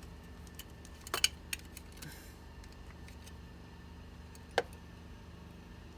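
Light metallic clicks and clinks of a hand wrench working on a battery terminal: a quick cluster a little over a second in and a single click a few seconds later.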